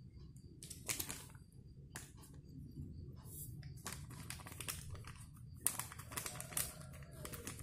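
A plastic sachet of liquid detergent crinkling and being torn open by hand, in irregular clusters of crackles, over a steady low hum.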